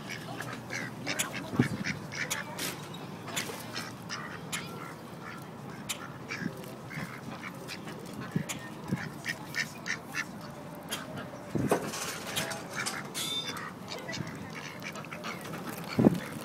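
Mallard ducks quacking, many short calls scattered throughout, with a few dull thumps, the loudest near the end.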